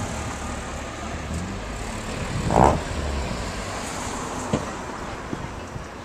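Low rumble of a motor vehicle engine running, fading after about three and a half seconds. A short, loud, higher-pitched sound comes about two and a half seconds in.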